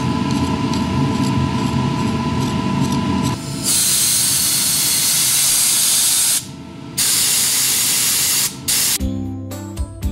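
Background music for the first few seconds, then compressed air hissing out of a Raptor Schutz air-powered spray gun as its trigger is pulled. It comes as a long blast of about three seconds, a half-second pause, then two shorter blasts, and music returns near the end.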